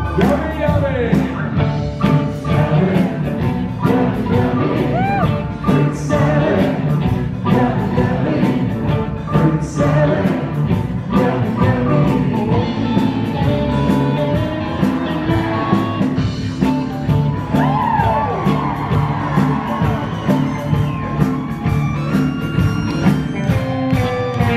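Live rock-and-roll band music, drum kit, electric guitar and keyboard playing an up-tempo dance section with a steady drum beat and a few sliding guitar or vocal glides.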